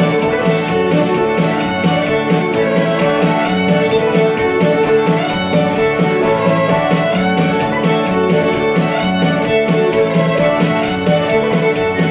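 A polka played live by fiddle, accordion and electric guitar, the fiddle carrying the melody over a steady, even beat.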